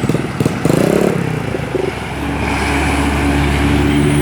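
Bus engine revving: the pitch rises about a second in, then the engine is held at steady revs.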